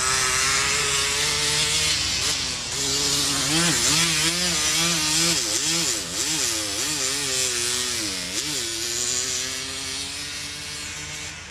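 A snow-converted quad's engine running, its revs rising and falling rapidly for several seconds in the middle, over a steady hiss. It settles to a steadier note and gets quieter near the end.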